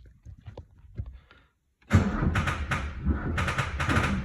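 1986 Ford XF Falcon being started on the key: faint clicks, then about two seconds in a loud, rapid clattering from the engine bay that keeps going.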